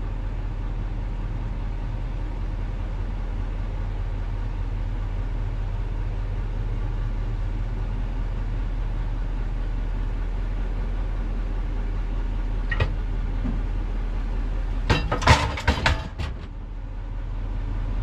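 GMC Denali 2500HD's Duramax diesel engine running steadily, heard from the truck bed. Near the end comes a single click, then a quick cluster of metallic knocks and clanks as the fifth-wheel camper's kingpin comes into the Reese hitch.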